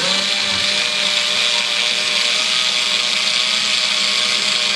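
A small electric motor, like a power tool's, switches on abruptly and runs steadily at one constant speed with a hum and a high hiss.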